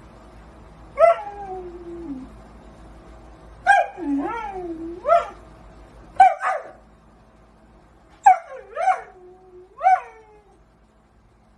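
A dog whining and yelping in a series of short calls, about nine in four bunches, each starting high and sliding down in pitch; the first is a longer drawn-out whine.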